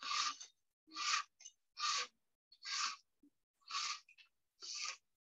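A plastic weaving strip scrapes against the weave as it is worked into a basket, making six rasping swishes about once a second.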